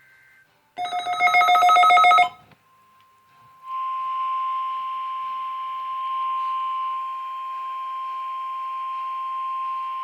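NOAA Weather Radio weekly test signal coming through a radio receiver. First comes a harsh, buzzing burst of digital SAME header tones lasting about a second and a half. After a brief gap, the steady 1050 Hz warning alarm tone begins: one continuous high tone with static hiss behind it.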